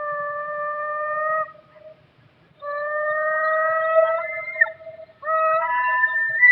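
Custom-made creature call sound effect for a fictional penguin: three long, level, flute-like hoots of one to two seconds each, the later ones with a second pitch layered over the first.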